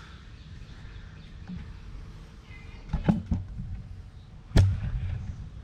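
Tool and parts handling while removing a loosened spin-on oil filter: three quick knocks about three seconds in, then one sharper, louder clack about a second and a half later.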